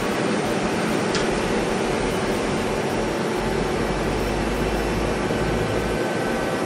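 2004 Mazak Multiplex 4200 CNC lathe running with a steady mechanical whir. A low rumble swells for a couple of seconds in the middle, and there is a faint tick about a second in.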